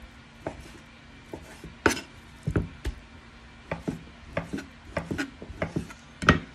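Kitchen knife slicing raw chicken breast into strips on a wooden cutting board: irregular knocks of the blade meeting the board, the loudest about two seconds in and again near the end.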